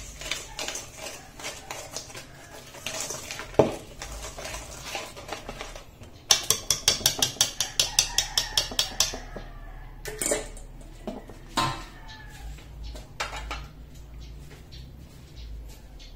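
Wire whisk beating cake batter in a stainless steel mixing bowl, its wires clinking against the metal sides. About six seconds in it turns into quick, regular tapping at about six strikes a second, followed by a few single knocks.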